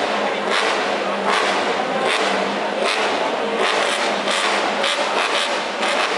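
Suzuki GSV-R 800cc V4 MotoGP racing engine running on a stand during warm-up, loud and steady with repeated short surges of revving.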